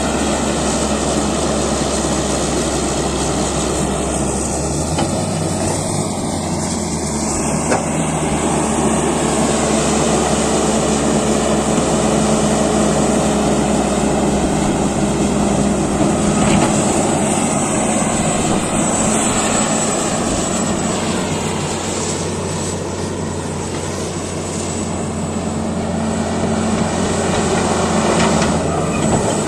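Caterpillar D8T bulldozer's diesel engine running steadily under work, its low note shifting a couple of times.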